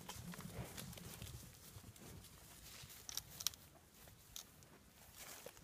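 Cattle moving about and stepping: faint scattered knocks and clicks, with a few sharper clicks about three seconds in.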